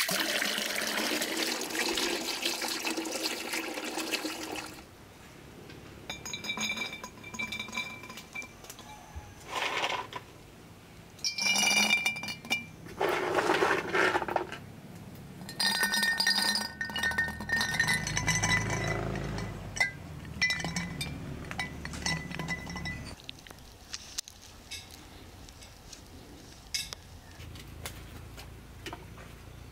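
Water running from a tap into a basin of rosehips, stopping about five seconds in. Then glass bottles clink and ring as they are handled and filled with rosehips, with some duller knocks between.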